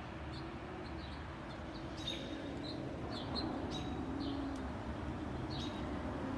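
Small birds chirping: short, high chirps repeated irregularly over a steady low background hiss.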